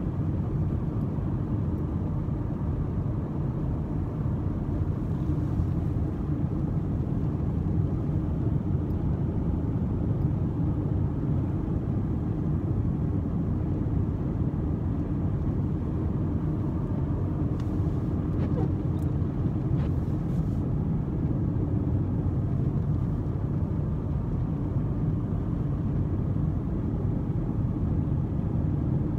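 Steady cabin noise of a car driving along a snow-covered road: a low, even rumble of engine and tyres.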